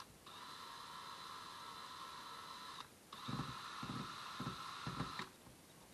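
Cordless drill/driver motor running in steady stretches, stopping briefly about three seconds in and again near the end, with a few low knocks during the second run.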